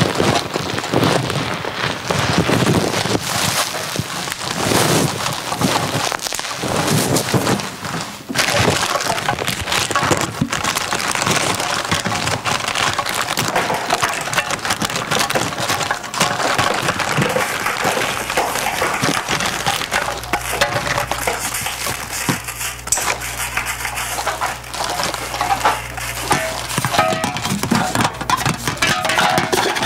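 Crumpling, crinkling and rustling of recyclable waste such as plastic packaging and paper: a dense crackle full of small clicks. A low steady hum sounds under it in the latter half.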